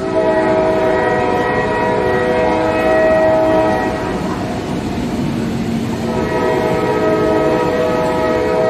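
Train horn sounding two long blasts, each about four seconds, with a gap of about two seconds between; each blast is a chord of several notes held steady.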